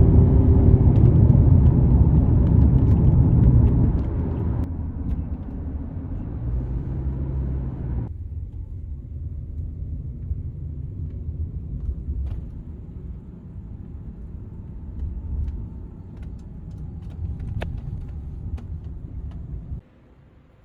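Low steady rumble of outdoor ambience, loud for the first few seconds and then quieter. It changes abruptly twice and cuts off suddenly near the end.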